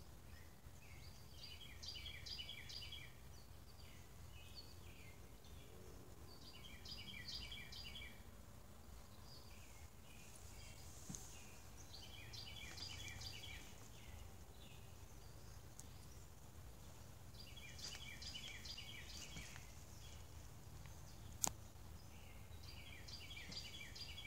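A songbird singing the same short phrase of quick, stacked chirps five times, about every five seconds. A single sharp click about 21 seconds in.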